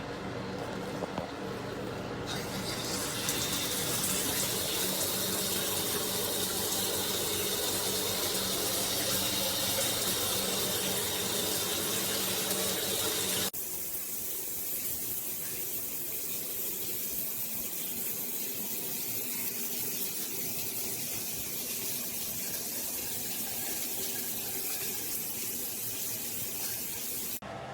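Water running steadily, a rushing hiss with a thin high whistle over it from about two seconds in. About halfway the sound changes abruptly and goes thinner, then runs on until just before the end.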